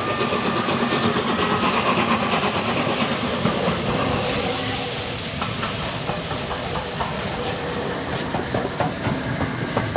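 LNER Peppercorn A1 three-cylinder 4-6-2 steam locomotive approaching and passing close by on a running-in run, with a steady hiss of steam over the noise of the engine.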